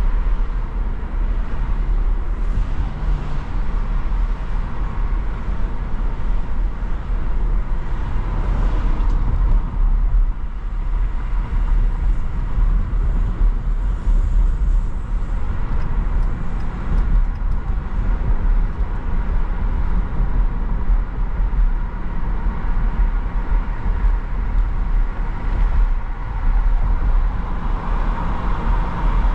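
A car driving on city streets: a steady low rumble of road and engine noise.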